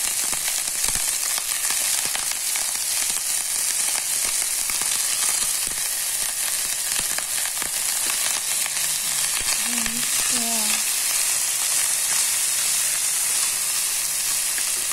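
Chopped winged beans, potato and carrot sizzling steadily as they sauté in a stainless steel pot, with a few light clicks of the spatula as they are stirred.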